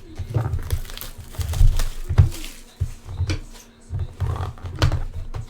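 Irregular thuds, knocks and rustles from a cardboard hobby box and trading-card packs being handled and opened close to the microphone; the strongest thuds come about a second and a half and two seconds in.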